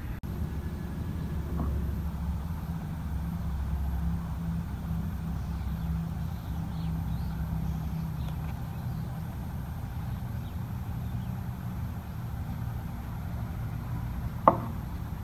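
A low, steady engine hum, with one sharp click near the end.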